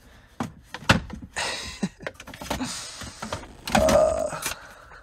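Knocks, clicks and scraping as a long snow brush is pushed and shifted into a plastic under-seat storage tray, with a sharp knock about a second in and a short squeak about four seconds in.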